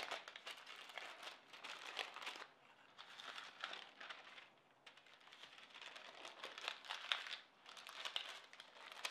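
Sheets of dry wax paper crinkling and rustling as slices of meatloaf are folded and wrapped in them by gloved hands. The crackling comes in runs with a few short pauses.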